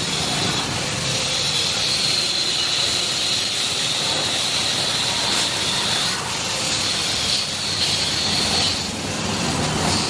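Steady hissing and crackling of a welding arc, with a high tone running through most of it.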